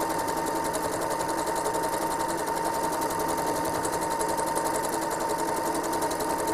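Home sewing machine running at a steady high speed while free-motion quilting: an even motor whine with rapid needle strokes.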